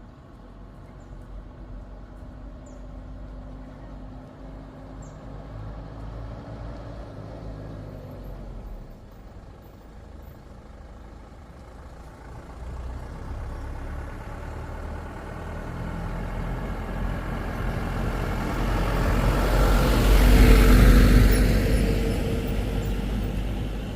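A motor vehicle's engine running and passing close by, growing louder to a peak near the end and then fading.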